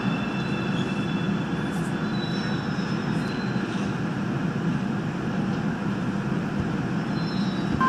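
Busan Metro Line 3 train running into an underground station, heard from inside the car: a steady, even running noise of wheels and motors, with a few faint high tones in the middle as it slows along the platform.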